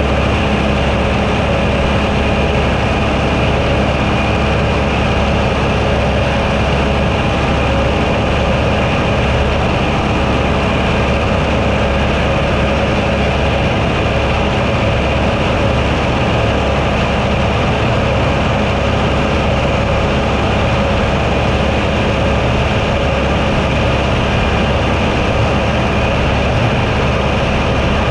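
Tractor with a roadside mower, running steadily: a constant heavy engine drone that holds the same pitch and level throughout.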